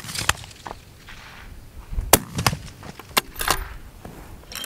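A single fullbore target rifle shot right at the start, then a string of sharp clicks and knocks about two seconds later.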